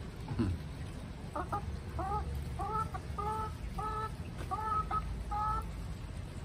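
A hen calling: a run of about eight short calls, each rising then holding level, about two a second.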